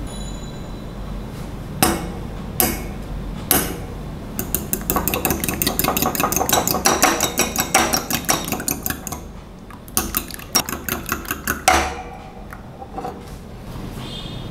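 Raw eggs being beaten in a glass bowl, the utensil clinking rapidly against the glass. A few single taps come first, then about five seconds of fast clinking, a short pause, and a shorter burst of clinking.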